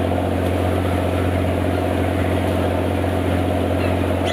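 Fishing cutter's diesel engine running steadily under way, a constant low drone with the churn of the wake. A few faint gull calls come in near the end.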